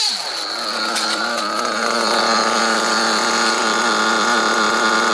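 Alpha Plus nitro RC buggy engine, a small glow-fuel two-stroke, falling in pitch as the throttle closes at the start, then idling steadily. The engine is being run in.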